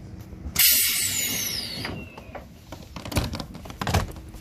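Light-rail car's passenger doors closing: a sudden loud hiss with a falling whistle, then knocks as the doors shut near the end.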